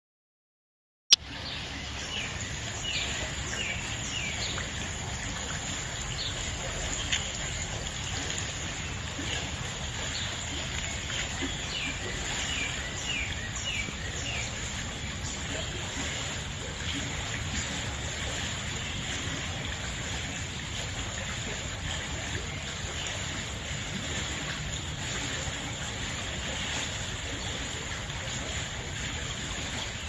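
Forest stream flowing steadily, with a bird calling in runs of short quick chirps through the first half. It starts after a moment of silence with a sharp click about a second in.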